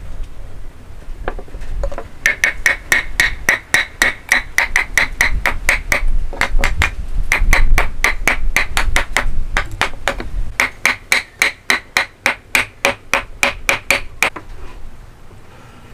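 Rapid light taps of a steel-headed hammer on hardwood, about five a second in three runs, each with a short metallic ring, knocking the pieces of a hand-cut mitered corner joint together.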